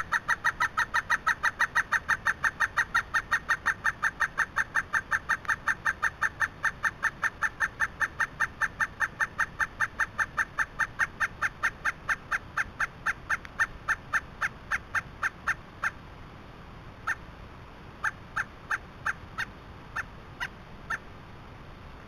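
Pileated woodpecker calling: a long, even series of loud notes, about five a second, that slowly loses pace and breaks off about sixteen seconds in, followed by a few single notes.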